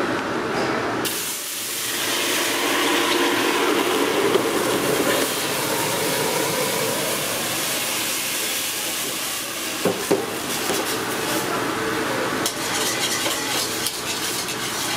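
Hot sauce poured into a hot aluminium saucepan on a gas range, sizzling as it fills. Near the end a wire whisk stirs it, clicking against the side of the pot.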